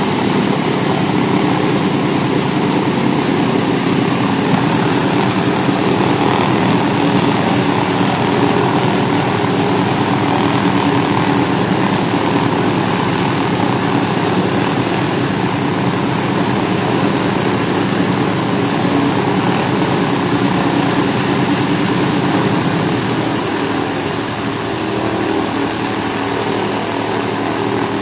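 The Douglas C-47B Dakota's Pratt & Whitney R-1830-90 Twin Wasp radial engines running steadily on a ground run, propellers turning. The sound eases slightly in level near the end.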